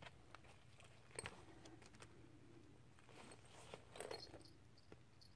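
Faint handling noises of a handmade paper traveler's notebook: soft crinkles and small clicks of paper pages and card tags being moved, loudest about a second in and again about four seconds in.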